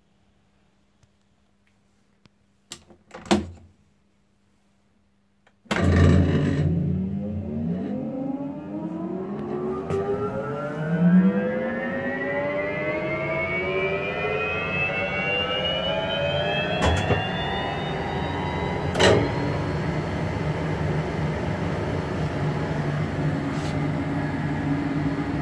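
The 5 hp electric blower of a Wurlitzer theatre organ starting up on its new starter: a couple of clicks, then about six seconds in the motor starts suddenly and runs up, its whine rising steadily in pitch for about fourteen seconds before settling into a steady run at full speed. A few brief clicks sound during the run-up.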